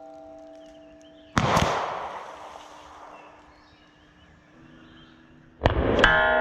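Two .38 Special revolver shots about four seconds apart, each trailing off in an echo, the second followed a moment later by a sharper crack. Soft music with held notes plays underneath.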